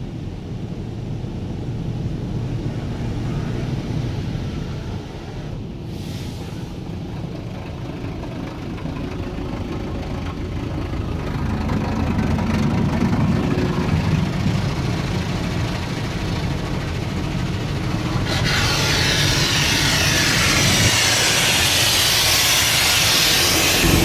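Touchless car wash machinery and water spray heard from inside the car's cabin: a steady low rumble that slowly builds. About 18 seconds in, a loud hiss of high-pressure water jets striking the windshield and body sets in.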